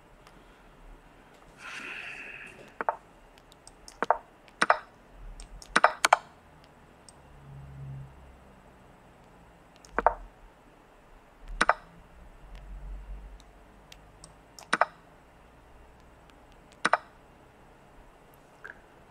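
About nine sharp clicks, singly and in quick pairs, of moves being played in a fast online chess game on a computer.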